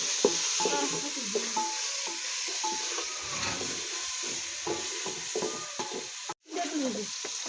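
Food frying in hot oil in a cooking pot, a steady sizzle with stirring; the sound drops out for a moment about six seconds in.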